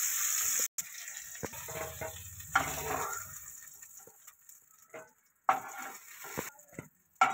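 Eggplant pieces sizzling in hot oil in a kadai, stirred with a metal spatula. Less than a second in the sound cuts to a fainter sizzle that dies away, with a few light clinks and scrapes.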